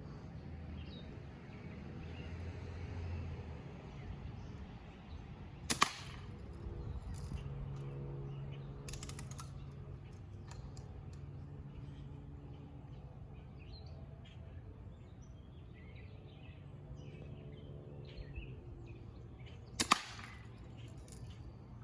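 BB gun fired twice, two sharp pops about 14 seconds apart, with a fainter click between them, over a steady low hum.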